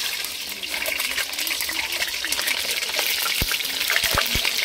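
Boiled eggs sizzling and crackling in hot oil in a nonstick kadai, with a few soft low knocks in the second half.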